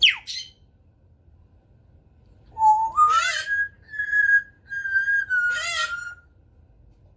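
African grey parrot whistling. A quick downward whistle comes right at the start. About two and a half seconds in, a rising whistle levels off into long, steady, high whistled notes, broken twice by short squawky calls, and stops about six seconds in.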